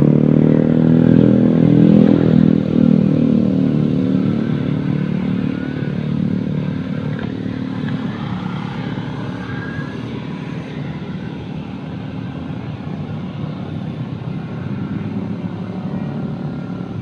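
Motorcycle engine running with a steady low pitch, loudest at first and fading gradually over several seconds.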